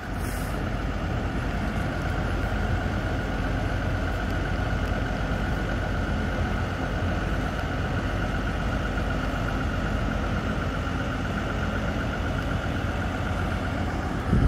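Heavy truck engine running steadily at idle, with a steady high whine over it. A short low thump near the end.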